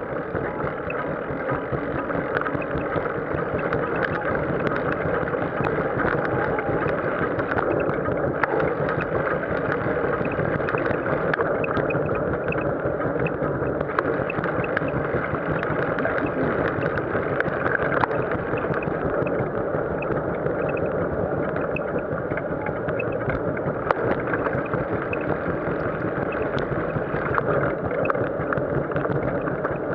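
Wind rumbling on the microphone of a bicycle-mounted camera while riding, with frequent small clicks and rattles from the bike.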